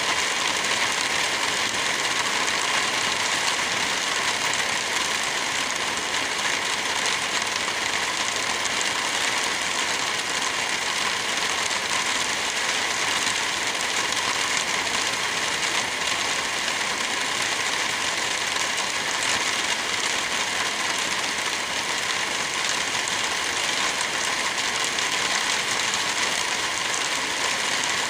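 Wind blowing through forest trees with light rain falling, a steady, even hiss with no distinct gusts or drops standing out.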